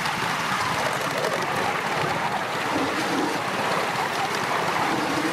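5-inch gauge live steam model of an LMS Black Five 4-6-0 running along a raised track, heard close by as a steady rushing noise of its running and its wheels on the rails.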